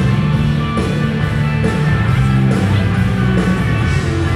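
Live rock band playing at full volume, electric guitars to the fore over a heavy bass end, heard from within the audience.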